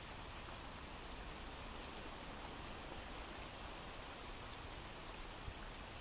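Steady, soft rain ambience: a recorded rain sound effect playing as a background bed.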